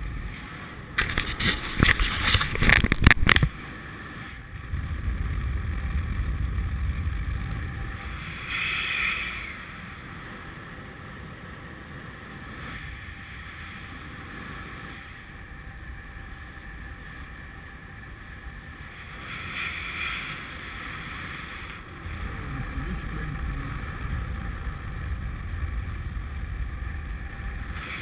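Wind rushing over an action camera's microphone in flight on a paraglider, rising and falling in gusts. There is a loud spell of buffeting and rattling about one to three seconds in.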